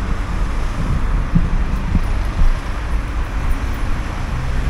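Road traffic going by, with a steady low rumble of wind on the microphone.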